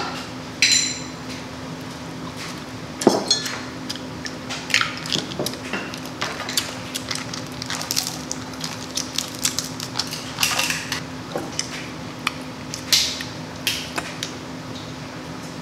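Crab legs being eaten: sharp, irregular cracks and snaps of shell, about one or two a second, mixed with clinks of dishes or utensils, one of them ringing briefly near the start.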